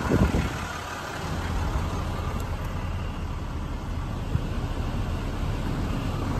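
A Ram 4500's 6.7 Cummins straight-six diesel idling steadily, with wind buffeting the microphone near the start.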